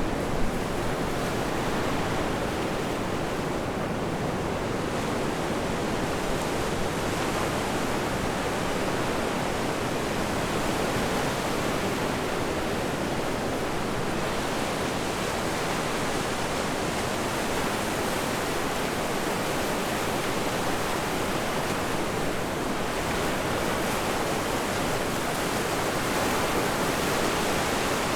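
Steady rush of wind and surf on a blustery beach, an even roar with no let-up.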